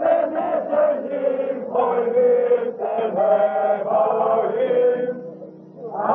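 A group of people singing together in a loud, chant-like song, phrase after phrase. The singing falls away about five and a half seconds in, then starts up again.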